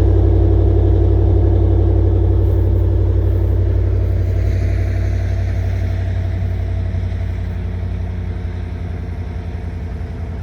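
2022 Chevy Tahoe's 6.2-liter V8 idling through its quad exhaust: a steady low rumble that slowly gets quieter.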